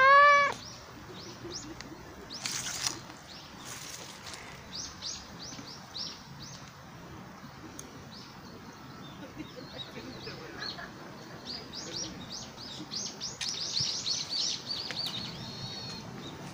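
A cat gives one short, loud meow right at the start, its pitch rising and then falling. After it, small birds chirp in quick short notes throughout, busiest near the end, with a couple of brief scuffs about three and four seconds in.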